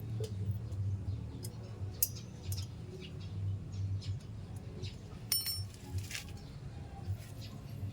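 Scattered light clicks and metal clinks of small parts and hand tools, with one ringing clink about five seconds in, over a low uneven hum.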